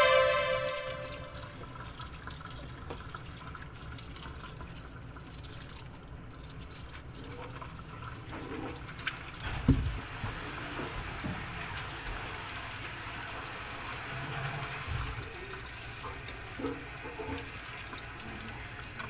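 Steady running water, as from a tap, with a single knock about ten seconds in.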